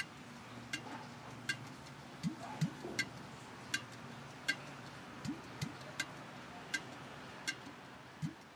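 Quiet comic background music: a steady tick about every three-quarters of a second, like a clock, with a pair of low rising plucked notes about every three seconds.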